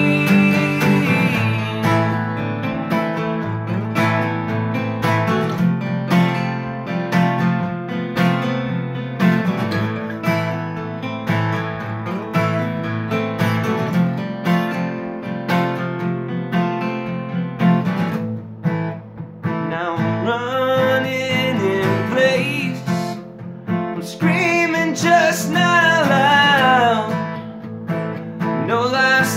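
Two acoustic guitars strummed together in an instrumental passage of a song, one of them a Fender. About twenty seconds in, a man's singing voice comes in over the guitars.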